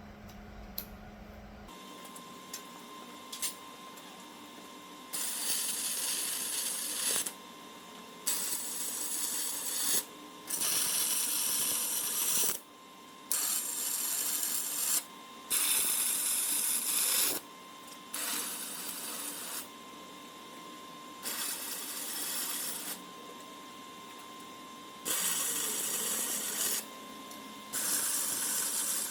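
Electric welding in short runs, about nine welds of one to two seconds each with brief pauses between, finishing off the tack-welded crossbars of a flatbed frame.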